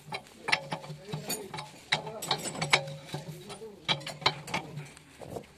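Ratchet wrench clicking in short, irregular strokes as it turns the nut on a JCB bucket tooth bolt, metal on metal.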